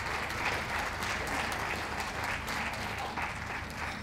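Audience applauding, a dense patter of many hands clapping that eases off slightly near the end.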